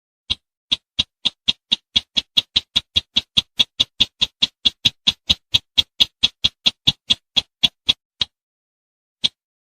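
Sintar semak bird calling: a run of short, sharp high notes that speeds up to about four or five a second, then slows and stops about eight seconds in, with one more note near the end.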